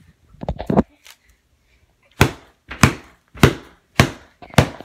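Homemade duct-tape club (PVC pipe with a taped ball head) beating a pillow: a quick flurry of hits near the start, then five hard, separate blows about every 0.6 s.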